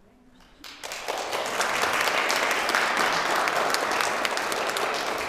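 Audience applauding, starting suddenly under a second in and quickly building to steady, full clapping.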